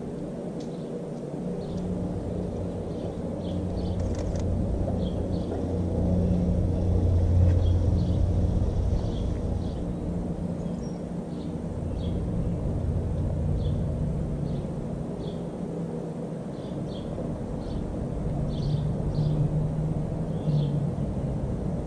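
A low, steady mechanical rumble like an engine running, swelling and fading in level, with small birds chirping in short notes throughout.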